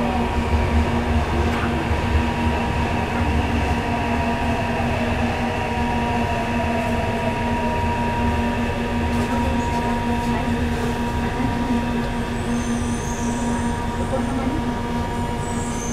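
Interior running sound of a Yokohama Municipal Subway 3000A-type train with Mitsubishi GTO-VVVF inverter drive, slowing. The rumble of wheels and running gear eases off and a faint whine falls in pitch over several seconds, over a steady electrical hum.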